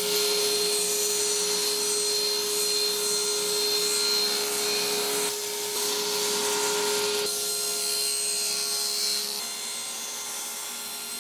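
Electric power saw running with a steady motor whine while cutting a wooden piece at a 30-degree bevel. About seven seconds in, the whine stops and the sound fades to a quieter rasping noise.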